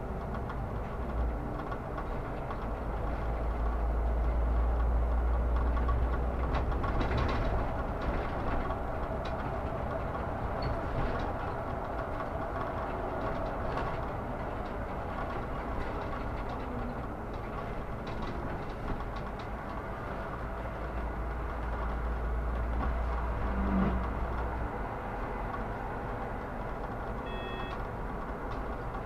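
Solaris Urbino 18 articulated city bus under way: a steady engine and road rumble, swelling a few seconds in and easing off later, with a short beep near the end.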